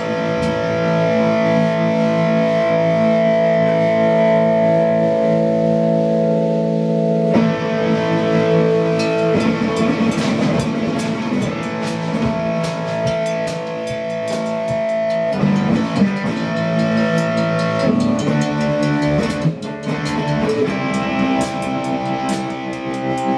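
Live rock jam of distorted electric guitar and drum kit: long held guitar notes ring for the first seven seconds or so, then the drums and cymbals grow busier under shifting guitar notes.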